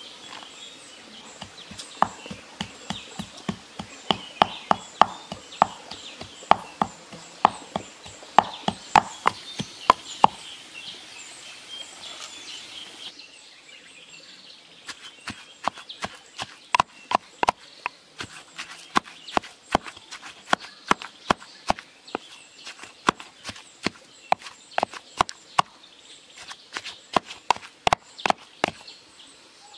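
A pestle pounding spice paste in a clay mortar: steady knocks about two a second. Birds chirp faintly in the first half.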